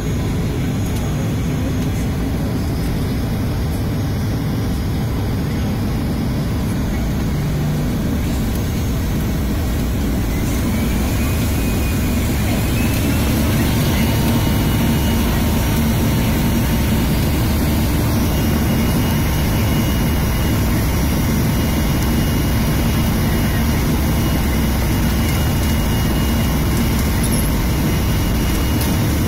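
Airliner's jet engines heard from inside the cabin: a steady low rumble, then a whine that rises from about eleven seconds in as the noise grows louder, the engines spooling up to takeoff power for the takeoff roll, after which the whine and roar hold steady.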